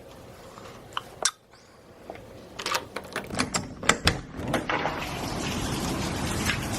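A few sharp clicks, then a run of clicks and knocks from handling something, after which the steady rush of heavy rain swells in and holds for the last couple of seconds.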